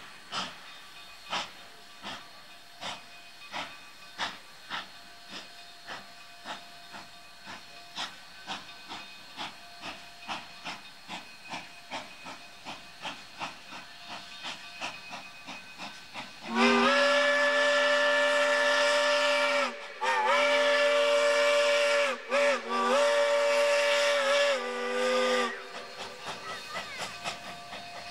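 Narrow-gauge Mikado steam locomotive working upgrade, its exhaust beats steady and slowly quickening. About halfway through it sounds its multi-tone chime whistle as long, long, short, long, the grade-crossing signal, then the exhaust beats carry on.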